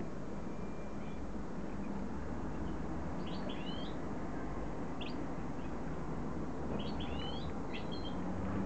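Caged finch giving short, twittering call notes in two quick clusters, with a single note between them, over a steady low hum.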